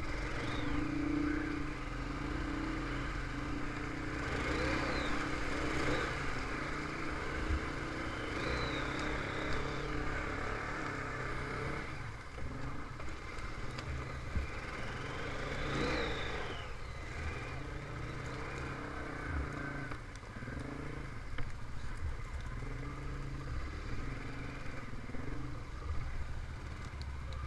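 Honda TRX500 Foreman ATV's single-cylinder engine running under way, its pitch rising and falling with the throttle several times.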